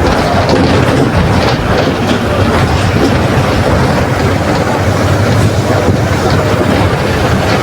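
Mercedes-Benz OF 1721 BlueTec 5 bus engine running steadily with the bus under way, a low drone under a busy rattle of the Marcopolo Torino body.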